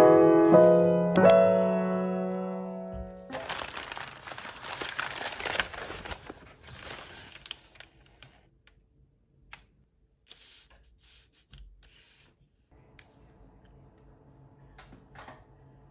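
Piano notes ringing out and fading over the first few seconds, then crumpled kraft paper crinkling and rustling loudly as it is handled for about four seconds, followed by scattered light rustles and clicks.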